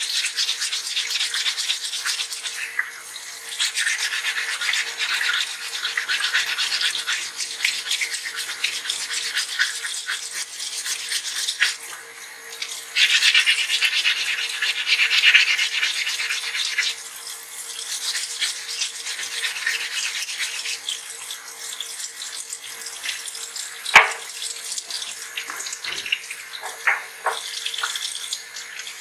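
Fine 220-grit waterproof sandpaper rubbed by hand over a wet dental stone model under a running tap: rapid, rasping scrubbing strokes that come and go in loudness. A single sharp knock near the end.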